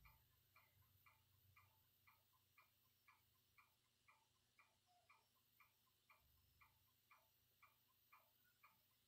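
Faint, steady ticking at about two ticks a second over near silence.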